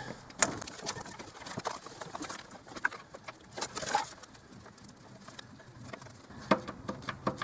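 Scattered light clicks and knocks of parts and fittings being handled in a car's engine bay, about seven sharp ticks spread out with quiet between them.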